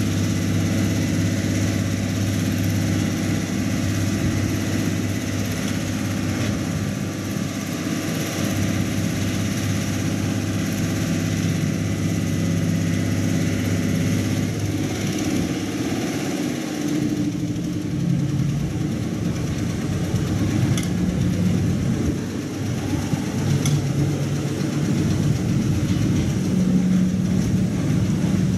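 Diesel engine of a stern fishing trawler running at low speed while it manoeuvres. Its note shifts about halfway through.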